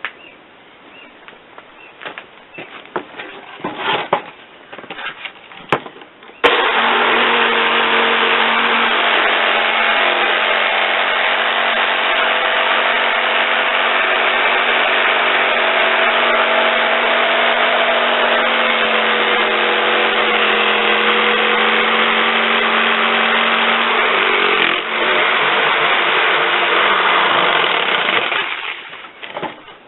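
Scattered knocks, then a motor starts abruptly about six seconds in and runs steadily at an even pitch for about twenty seconds before dying away near the end.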